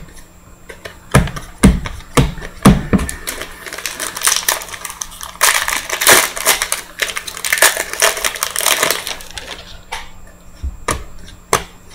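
A foil trading card pack wrapper being torn open and crinkled, with a dense crackle in the middle that fades toward the end. Before it come a few taps as cards are set down on a stack on the table.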